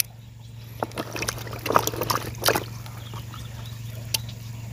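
Hands squeezing and rinsing soaked, blackened cassava pieces in a plastic bucket of water: irregular splashes, drips and wet squelches, busiest between about one and three seconds in, with one more splash near the end.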